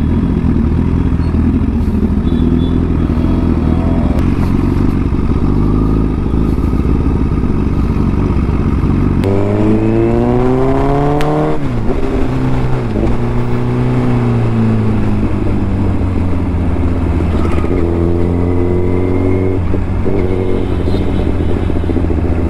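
Honda CBR1000RR Fireblade's inline-four engine heard from the rider's seat. It pulls steadily at low speed, then about nine seconds in the throttle opens hard and the revs climb sharply for about two seconds. The throttle then shuts and the revs fall away, and the engine settles into steady cruising with a couple of smaller throttle blips near the end.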